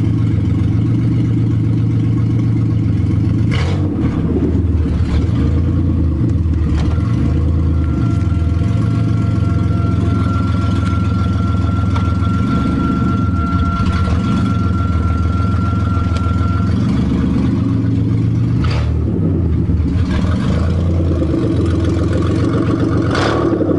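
1999 Buick Century's 3.1 L V6 running loud and steady at idle through a straight-piped exhaust with no muffler. A thin high whistle holds for several seconds in the middle.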